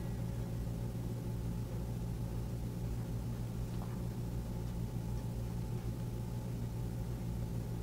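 Steady low hum, unchanging throughout.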